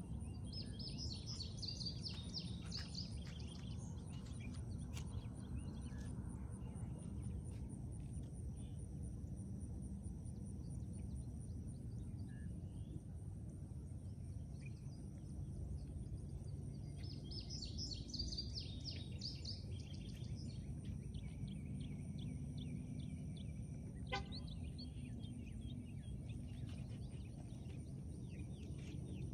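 Outdoor ambience with a steady low background rumble. A songbird sings in short chirping phrases near the start, again about two-thirds of the way through, and once more at the very end. A single sharp click comes late on.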